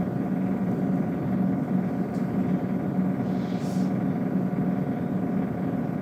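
Steady low background hum of the room, unbroken and even, with a faint short hiss about three and a half seconds in.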